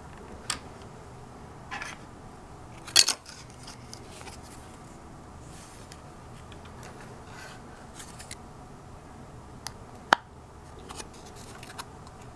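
3D-printed plastic gears and a plastic gearbox plate being handled and set down on a cutting mat: scattered light clicks and knocks. The loudest is a short clatter about three seconds in, and a sharp single click comes near ten seconds.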